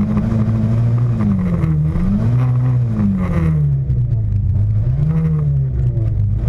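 Škoda Felicia rally car's engine revved up and down three times while the car stands still, each rev rising and falling in pitch.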